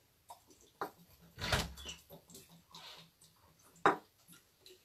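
Glass bottle handled over a glass jar: a few small clicks and a brief rustle, then one sharp glass clink just under four seconds in as the bottle's neck meets the jar's rim.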